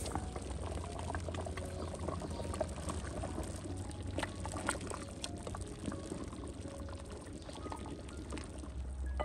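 Khash broth of bull head and hooves bubbling in a large metal pot while a wooden spoon stirs and sloshes through it, with small irregular splashes and knocks.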